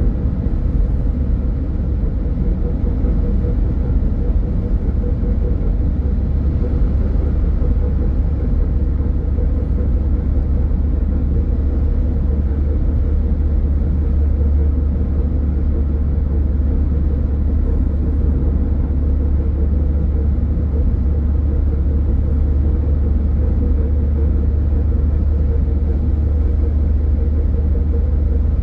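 Steady low rumble of a car under way, with engine and tyre-on-road noise and a faint constant hum above it.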